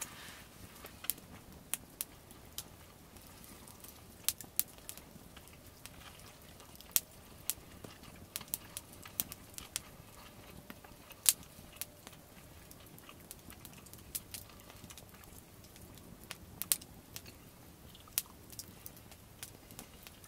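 Wood campfire crackling, with irregular sharp pops and snaps, a few of them louder than the rest.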